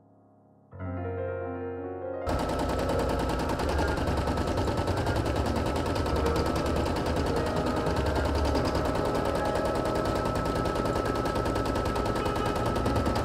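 Brother PE800 embroidery machine stitching: a fast, steady run of needle strokes that sets in about two seconds in, after a softer hum.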